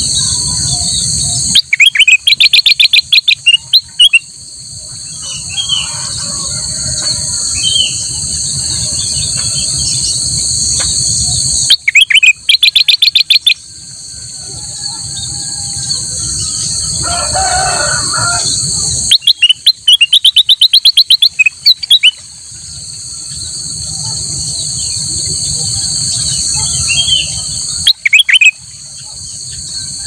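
Ruby-throated bulbul (kutilang emas) singing four loud runs of rapid repeated notes, roughly every eight seconds, with softer warbling notes between them. A steady shrill drone of insects fills the gaps between the runs.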